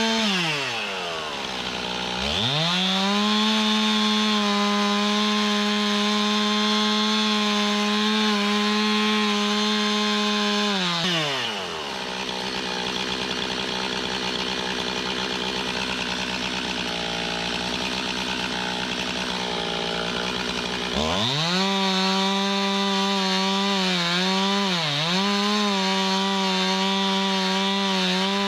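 Gas chainsaw felling an oak, running at full throttle. It drops to idle right at the start and revs back up about two seconds in. It idles again for about ten seconds in the middle, then revs up once more and cuts steadily, with a brief dip in pitch near the end.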